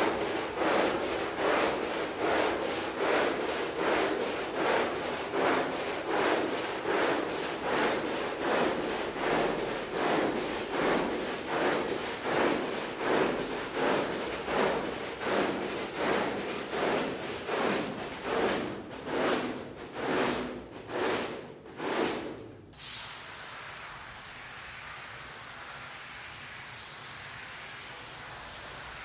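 A rug scrubbed with a hand brush in rhythmic strokes, about two a second, slowing slightly towards the end. The strokes stop about 23 seconds in, and a steady even hiss follows.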